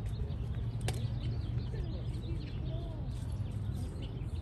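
Baseball field ambience: distant, indistinct voices of players and spectators over a steady low rumble, with one sharp click about a second in.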